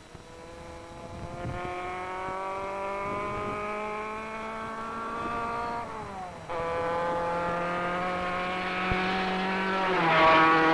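Racing sports car engine accelerating hard, its pitch climbing steadily. The pitch drops sharply at an upshift about six seconds in, climbs again, and drops at another shift near the end.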